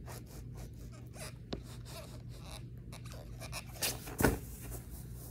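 Skateboard kickflip attempt on grass: faint scuffs of shoes shifting on the deck, then two sharp thumps close together about four seconds in as the board is popped and comes down, the second the louder.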